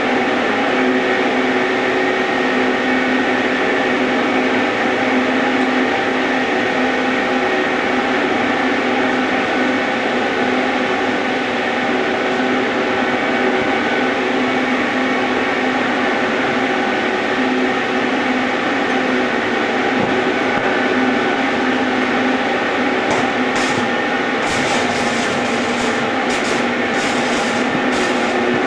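Steady electric arc welding: a constant hum with a hiss, and sharp crackling near the end.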